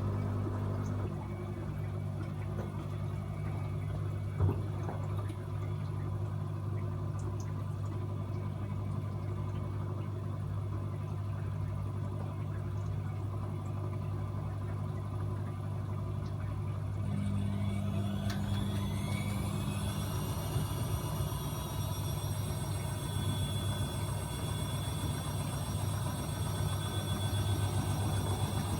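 AEG Öko-Lavamat 74780 washing machine spinning its drum with a steady hum and rumble. About two-thirds of the way in, the motor's whine rises over a couple of seconds and levels off as the drum speeds up for the spin.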